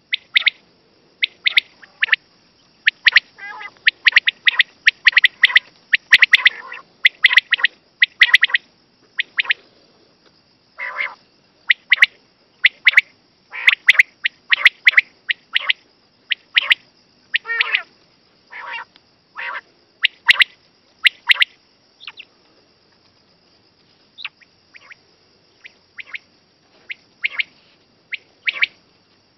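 Common quail (batair) calling: short, sharp notes repeated in quick clusters with pauses between groups, fewer and more spaced out in the last third, over a faint steady high hiss.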